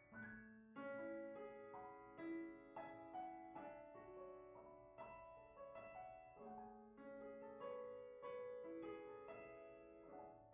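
Quiet, slow background piano music, one soft sustained note after another.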